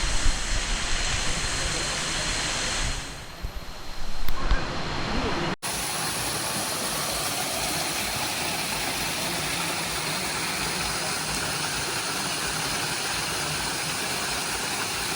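Steady hiss of water falling at a waterfall with little flow. The sound breaks off sharply about five and a half seconds in, then goes on as an even, unchanging rush.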